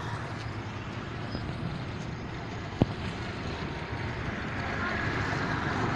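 Steady road-traffic noise, with a single sharp click about three seconds in.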